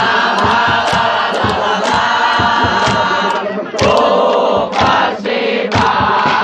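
Crowd of football ultras chanting and singing in unison in phrases, with a drum struck in a steady beat underneath.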